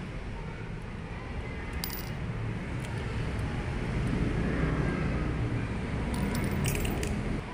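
Light metallic clicks and taps as small parts are handled inside the opened housing of a Bosch diesel injection pump: one pair about two seconds in and a cluster near the end. Under them runs a steady low rumble.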